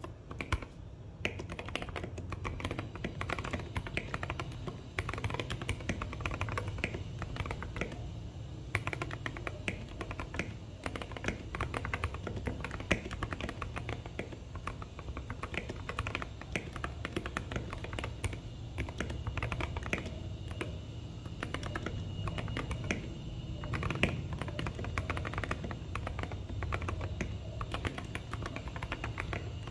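Steady, fast typing on a mechanical keyboard fitted with hand-lubed Gazzew Boba tactile switches, a rapid uneven stream of key clicks and clacks.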